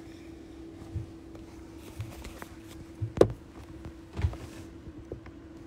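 A few soft thumps and one sharper knock about three seconds in, over a faint steady hum.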